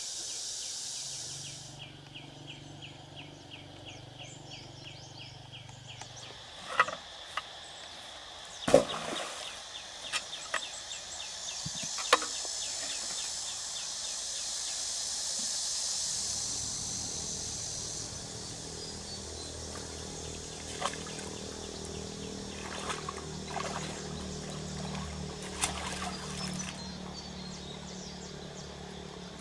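Outdoor ambience by water: a rapid ticking at about five a second in the first few seconds, scattered sharp knocks and splashes, and a low steady hum through the second half.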